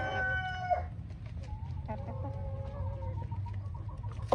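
Roosters crowing: one long crow ends about a second in, and a second, quieter crow follows from about two seconds in, with hens clucking and light pecking clicks around them.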